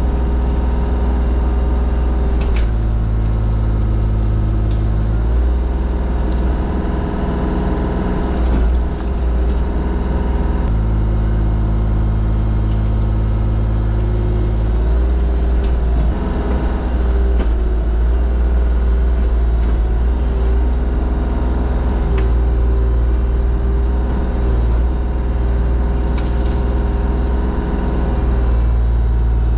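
Forestry mulcher running hard, its engine working under load. The tone shifts every few seconds as the cutting load changes, with a few sharp cracks of wood being struck.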